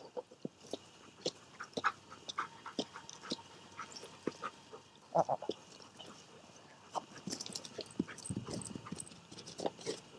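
A Labrador retriever making short vocal sounds, among many irregular light clicks and knocks.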